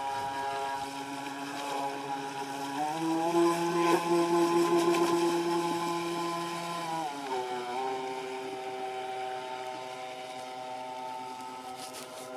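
Radio-controlled model speedboat's motor running at speed. A few seconds in, its pitch rises and it gets louder for about four seconds, then it drops back to a steady lower note.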